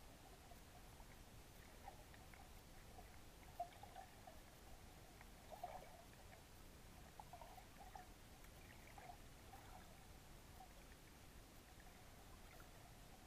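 Near silence under water: faint scattered ticks and small bubbly blips over a low hiss, with two slightly louder ones about three and a half and five and a half seconds in.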